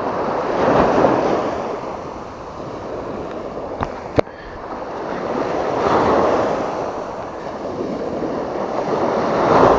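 Small surf breaking and washing up a sandy beach, swelling and fading every few seconds. A sharp knock or two sounds about four seconds in.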